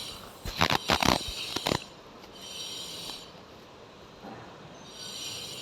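A quick run of short clicks and taps from handling a small plastic mould and packing kinetic sand into it, in the first two seconds. After that only a faint hiss remains.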